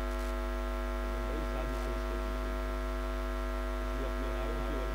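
Steady electrical mains hum from a public-address sound system, loud and unchanging, with faint voice fragments now and then beneath it.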